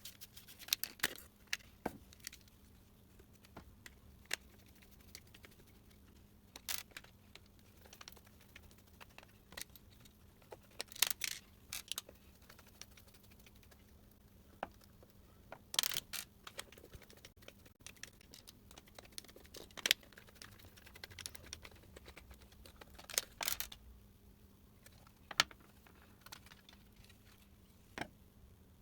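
Scattered clicks, taps and short rustles of a plastic work light and small hand tools being handled, at irregular intervals.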